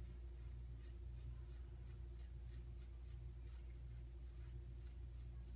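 Parker Variant adjustable safety razor with a Big Ben blade scraping through a day's stubble under lather in a quick series of short, faint, scratchy strokes: the first pass with the grain, cutting smoothly.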